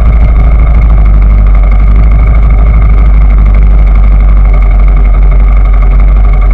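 Vehicle engine running steadily, loud and close, with a heavy low rumble.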